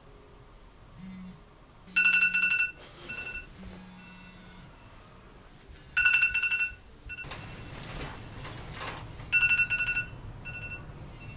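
Mobile phone ringing: an electronic two-tone ring sounding three times, about four seconds apart. Between the second and third rings, bedding rustles as it is picked up.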